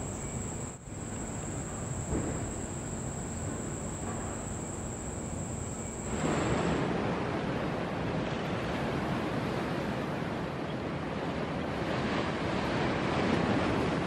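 Outdoor wetland ambience: a steady high-pitched insect drone over a soft rushing background. About six seconds in, the insect sound stops and a louder, even rushing noise takes over.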